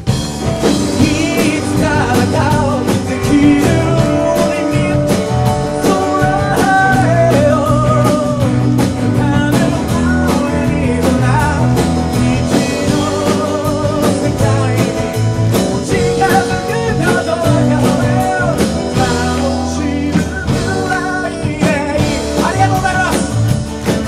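A live band playing a song: a man singing over strummed acoustic guitar, electric bass, keyboard and drums.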